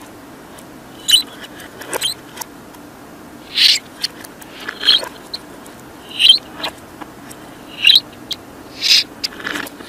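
Pet budgerigar chirping: short, high single chirps at irregular intervals, about one a second.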